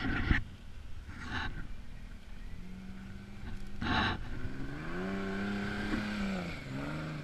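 Ford Ranger's engine revving up and holding under load as the truck crawls through muddy ruts, then easing off near the end. A few short crunches, like footsteps in snow, come in before the engine rises.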